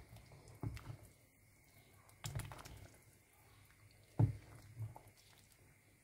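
Ladle stirring in a pot of simmering chicken broth, with a few faint knocks and taps of the ladle against the pot, the loudest about four seconds in.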